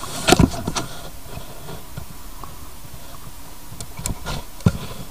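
Small screws and a screwdriver clicking and knocking against an aircraft gauge's housing as the screws are put back in. The clicks come in two short clusters, one near the start and one about four seconds in.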